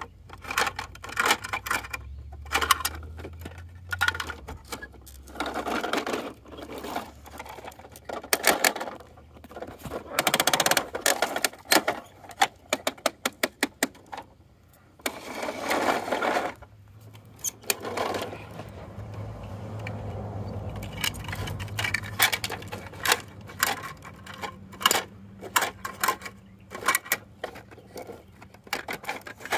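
Plastic toy garbage truck parts and toy bins clicking, clacking and rattling as they are handled: many sharp clicks in irregular runs, with a few longer rattling stretches.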